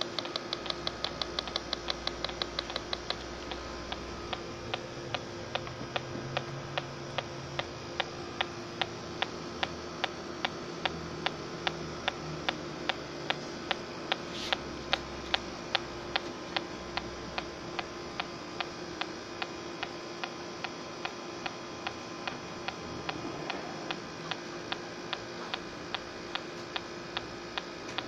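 Smart Sensor electronic refrigerant leak detector ticking: rapid clicks for the first three seconds, then a steady tick about twice a second. The tick rate of such a detector rises as the probe senses refrigerant gas.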